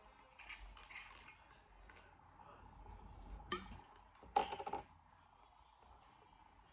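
Glass bottle and wine glasses being handled on a table: a few light knocks and clinks, a sharp one about three and a half seconds in and the loudest cluster a second later.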